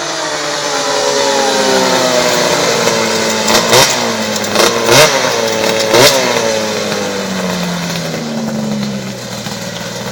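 Snowmobile engine, the machine modified to run on asphalt, driving past: its pitch falls steadily as it goes by, with several sharp cracks about three and a half to six seconds in.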